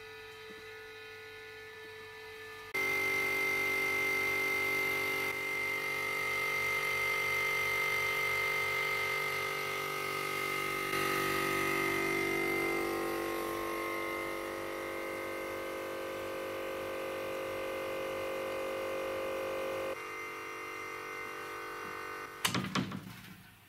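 Refrigerator compressor, rebuilt as a homemade air compressor, running with a steady motor hum as it pumps up its tank. The hum jumps louder about three seconds in and drops back a little near the end, followed by a couple of sharp clacks.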